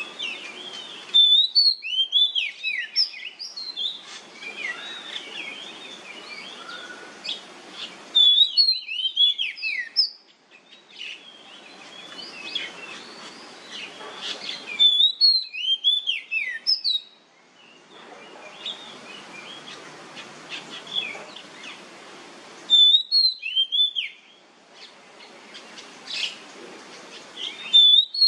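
Oriental magpie-robin singing: loud bursts of rapid rising and falling whistled notes, five times about every six to eight seconds, with softer chirping between them.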